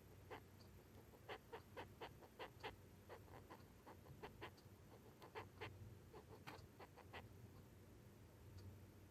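Male Japanese rhinoceros beetle's courtship stridulation: a faint series of short strokes, about three a second, in loose bursts, stopping about seven seconds in.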